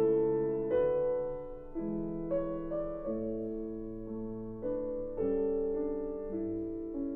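Background piano music: slow, soft chords and single notes, each struck and left to fade before the next.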